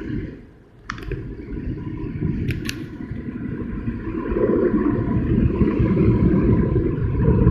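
Automatic car wash spraying and scrubbing the car, heard from inside the cabin: a steady low rush of water and wash equipment on the body and windshield that grows louder about halfway through, with a few sharp ticks in the first three seconds.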